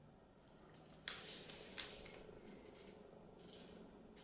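Scratchy strokes of a permanent marker drawing on folded origami paper. They start sharply about a second in and fade near the end.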